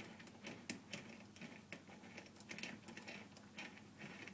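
Allen key turning the compression screw in an SCS clamp on a scooter fork: faint, irregular light clicks and taps of the tool in the bolt head.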